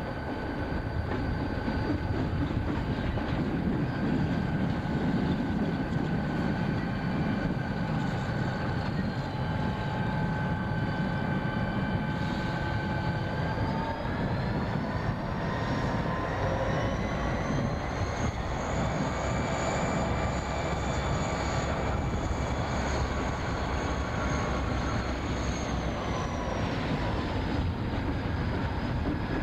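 Burlington Northern diesel locomotives running through the yard with a steady engine drone and a high whine. About halfway through, the whine rises in pitch and holds, then falls back near the end.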